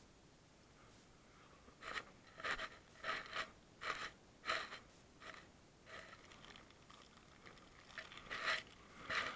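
Paper snack wrapper crinkling as it is handled, a run of short rustles about two a second, fading for a while and picking up again near the end.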